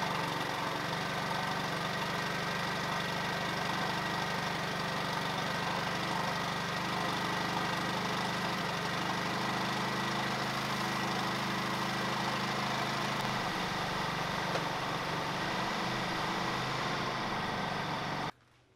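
Yamaha 9.9 hp four-stroke outboard running steadily at idle on a test stand, its lower unit in a barrel of water. The sound cuts off abruptly near the end.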